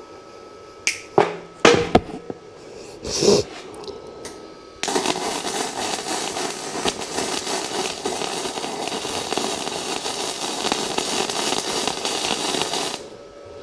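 Gasless flux-core MIG welder (Unimig Viper 120, 0.8 mm wire) arc: a few short sharp bursts in the first few seconds, then a steady crackle for about eight seconds as a weld is run, cutting off suddenly near the end.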